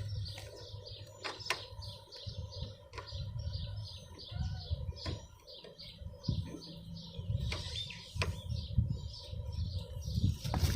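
A bird chirping over and over, short high notes at about two to three a second, with a few sharp clicks and knocks scattered through.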